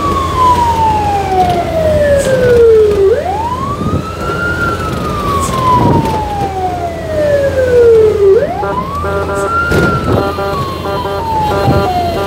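Fire truck siren wailing, heard from inside the cab on the move: each wail rises quickly, then falls slowly over about four seconds, and repeats, over a steady engine and road hum. Near the end a rapid string of short repeated tones joins the wail.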